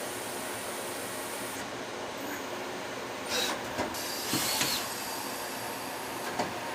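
Citizen M32 CNC Swiss-type lathe running with a steady machining noise. A few short hissing bursts come a little past the middle, and there is a sharp click near the end.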